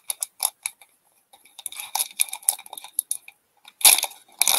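Foil wrapper of an Upper Deck hockey card pack being picked up and crinkled, then torn open about four seconds in with a sharp crackling rip. A few light clicks of card handling come first.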